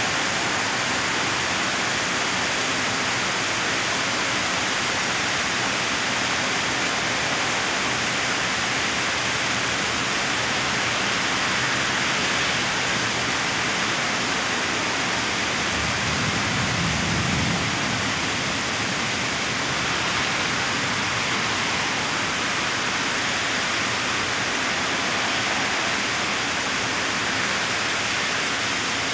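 Steady hiss of heavy rain falling over buildings and trees. A brief low rumble swells about sixteen seconds in.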